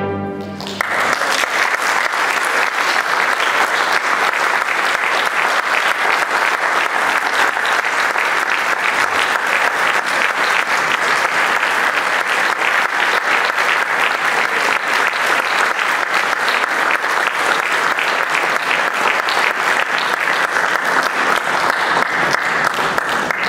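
Orchestra's final chord cutting off less than a second in, followed by a concert-hall audience applauding steadily.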